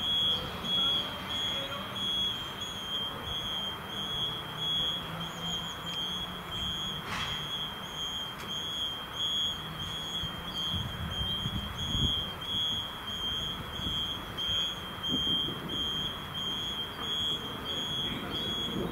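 Fire station alarm signal: a high-pitched electronic beep pulsing rapidly and steadily without a break, over the low running of a vehicle engine.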